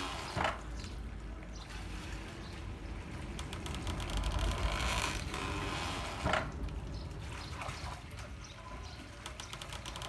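Water trickling and splashing steadily from bamboo pipes, with two sharp knocks about six seconds apart: the beat of a handmade water-powered corn mill.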